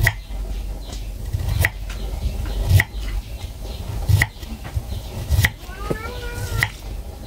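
Kitchen knife slicing peeled ambarella (cóc) thinly on a round wooden chopping board. Each cut ends in a sharp knock of the blade on the board, six cuts a little over a second apart.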